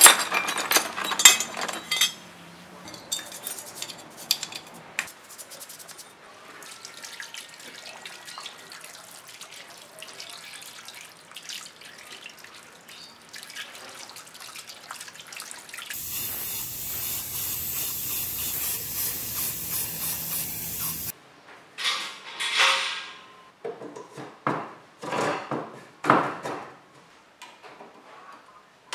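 Greasy small bicycle parts clattering as they are tipped out of a plastic tub, then rinsed under water: a steady splashing spray runs for about five seconds past the middle and cuts off suddenly. It is followed by scattered scrapes and clicks of brushing and handling metal parts.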